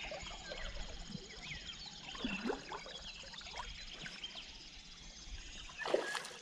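Flowing river water with birds chirping. About six seconds in comes a splash as a chub strikes at the surface.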